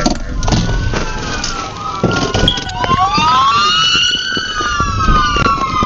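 Police car sirens wailing during a pursuit, at least two of them, their pitches slowly rising and falling out of step with each other.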